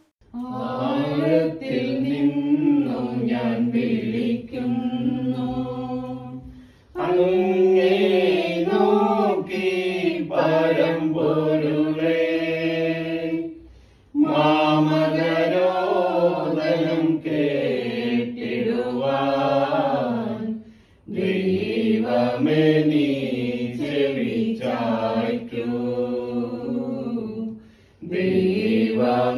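A small mixed group of men's and women's voices singing a slow Malayalam hymn for the departed together, in phrases of about seven seconds with a short breath between each.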